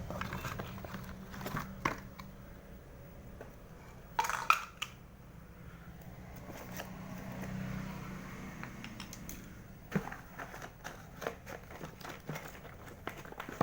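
Handling of a broken plastic miniature truck and its packaging: scattered clicks, crinkles and light knocks, the loudest cluster about four and a half seconds in and more around ten seconds in.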